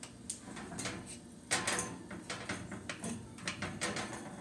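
Metal ring cake pan being pulled forward over a wire oven rack: a run of clicks, knocks and scrapes of metal on metal, loudest about one and a half seconds in.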